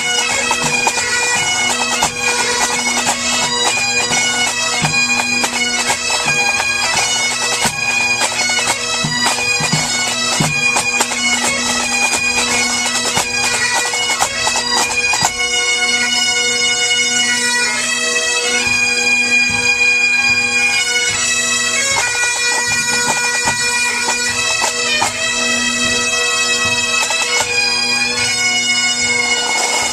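Pipe band playing: Great Highland bagpipes sound a tune over a steady drone, with drum strokes through the first half. About halfway through the tune moves to longer held notes.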